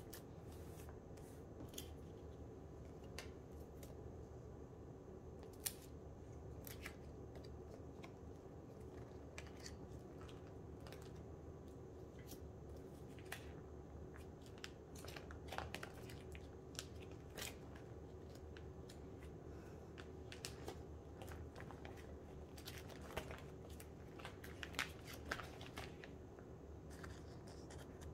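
Photocards being slid in and out of plastic binder sleeves: scattered light clicks and crinkles of plastic at an uneven pace, over a faint steady hum.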